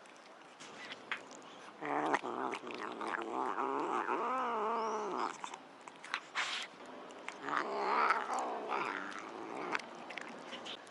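A domestic cat making two long, wavering growl-yowls, one from about two to five seconds in and another from about seven to nine and a half seconds. A few short clicks sound between them.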